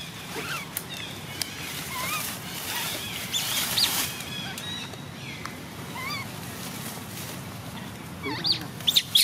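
Baby macaque giving short, high squeaking calls every second or so, distress cries while an adult pushes it away from nursing. Crackling of dry leaves near the end.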